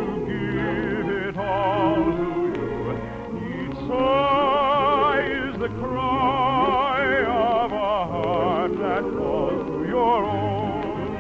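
Operetta song with orchestra: a high melody line carried in wide vibrato over sustained accompaniment, during a stretch of the song without recognisable words.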